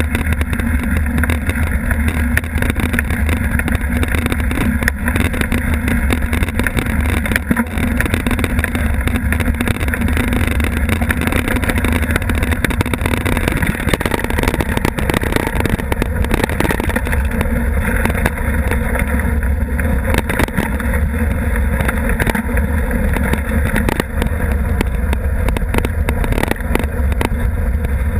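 Mountain bike riding over a rough, rocky dirt trail, heard from a seatpost-mounted camera: a steady low wind rumble on the microphone, with the tyres crunching and many small knocks and rattles from the bike as it rolls over the ground.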